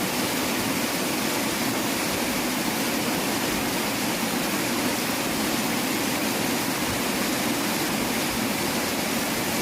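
River water rushing steadily, an even, unbroken wash of flowing-water noise with no distinct splashes.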